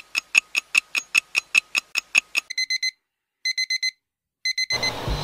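Timer sound effect: quick, even ticking at about five ticks a second, then an alarm beeping in three quick groups of about four beeps, signalling that the cooking time is up.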